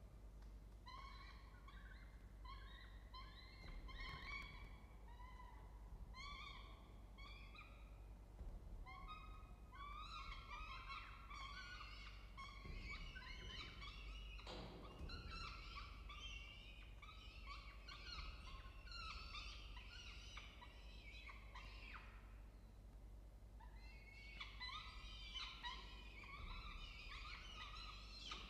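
Peregrine falcon chicks giving repeated short begging calls while being fed, each call a note that rises and falls. The calls come singly at first, crowd into an almost unbroken chorus about a third of the way in, and pause briefly near the end. A low steady hum runs underneath, and a single knock comes about halfway through.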